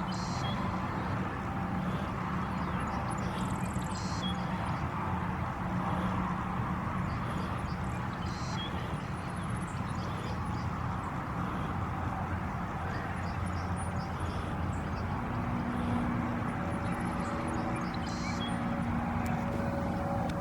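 Steady outdoor rumble with a few short high chirps; about three-quarters of the way in, the steady drone of a small plane's engine passing overhead comes in.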